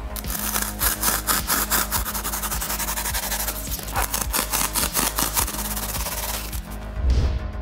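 Hand-saw strokes rasping through a block of polystyrene foam: first a steel-toothed hand saw, then, about four seconds in, a 3D-printed plastic saw. A thump near the end, with background music throughout.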